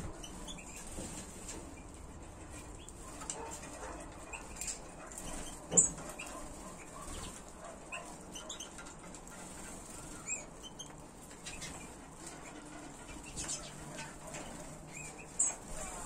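Aviary finches giving short, scattered chirps and calls, with wing flutters as they fly between perches and feeders. A single sharp knock about six seconds in is the loudest sound.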